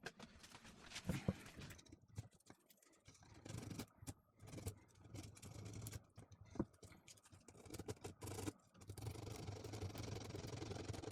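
Sandpaper rubbing on the small metal contact of a coffee grinder's push switch in short, irregular strokes, scraping off the black arc-burned deposit from the contact.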